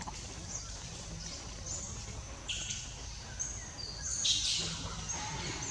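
Birds chirping in short high calls, the clearest about two and a half and four seconds in, over a steady low outdoor rumble.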